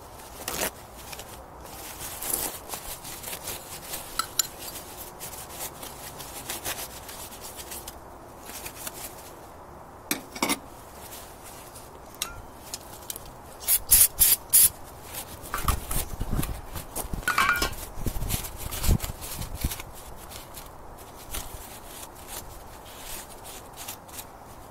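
Hand-cleaning the metal water pump base plate on a Johnson 9.5 HP outboard's lower unit: irregular rubbing and scraping with scattered clicks. About halfway through comes a quick run of loud, sharp clicks, followed by a few low thuds.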